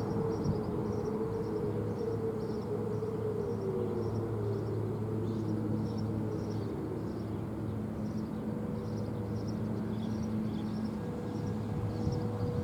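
Outdoor ambience with a steady low hum, a faint wavering tone in the background, and small high chirps repeating throughout.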